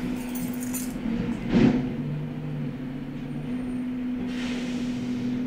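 A heavy vehicle's engine running, a steady low drone with a short hiss about four seconds in, loud enough to be noticed indoors.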